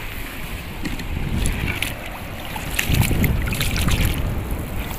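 Wind rumbling on the microphone over shallow sea water sloshing, with scattered small splashes and crackles. The rumble grows louder about three seconds in.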